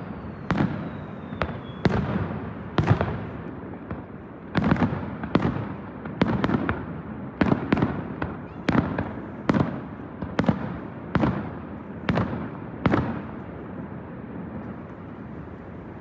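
Fireworks display: aerial shells bursting in a rapid string of about twenty loud bangs, roughly one every half second to a second, each trailing off in an echo. The bangs stop about three seconds before the end.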